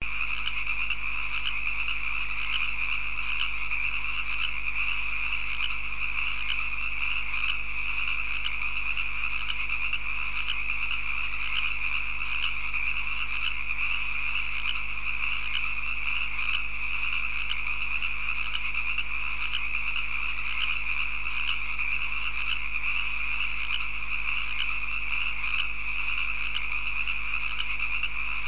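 Steady, unbroken night chorus of croaking frogs.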